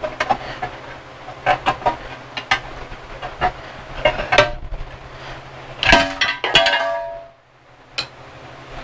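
Steel pry bars levering an aluminum timing chain cover off a 2013 Hyundai Sonata engine block, breaking its sealant: a run of sharp metal clicks and knocks, then a ringing metallic clang about six seconds in.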